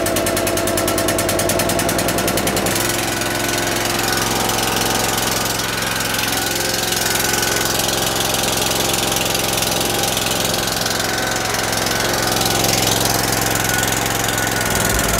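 Van-mounted pressure washer's engine and plunger pump running steadily just after starting, settling to a smoother note about three seconds in.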